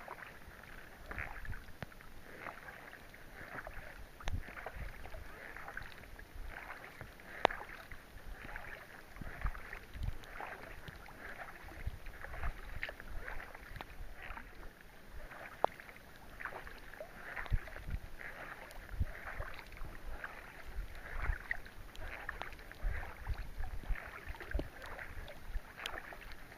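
Kayak paddle strokes splashing in an irregular rhythm over rain falling on the lake, with a few sharp taps and wind rumbling on the microphone.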